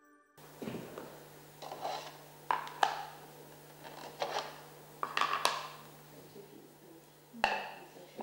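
Plastic slide plates of a Trixie Gambling Tower dog puzzle clacking and scraping against its clear plastic tube and wooden base as it is put together by hand: about eight irregular knocks and clicks, one of the loudest near the end, over a faint steady low hum.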